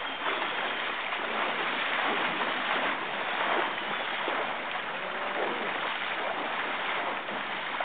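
River water rushing steadily past anglers wading in the current.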